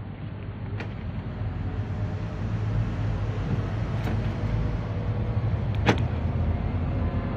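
Perodua Kancil's small three-cylinder engine idling steadily after a remote start, with three sharp clicks, the loudest about six seconds in.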